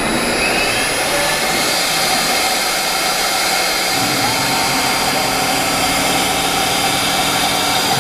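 Spindles of an HG-1325 wood CNC router running at high speed, a loud steady whine over machine noise, one tone rising in pitch over the first second or two. A lower hum joins about four seconds in.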